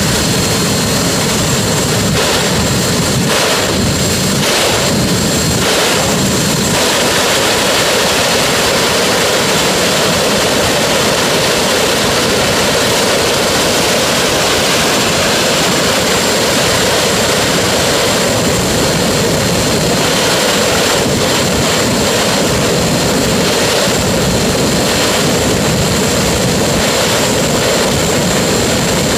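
Jet car's jet engine running flat out with the afterburner lit: a loud, steady roar with a thin high whine on top.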